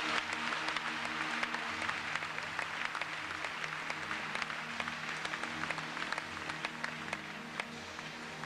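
Audience applauding, a dense steady patter of many hands clapping, with faint music underneath.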